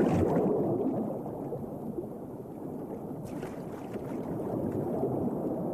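Muffled underwater rush and gurgle of water churned by a diving bird's plunge, loudest at the start and fading, with a faint click a little over three seconds in.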